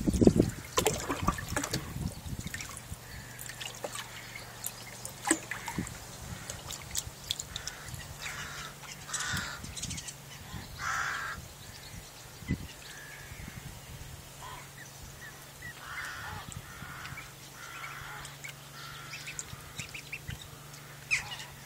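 Two-week-old Call ducklings moving about in a tub, giving short calls at intervals, with small clicks and a faint steady low hum.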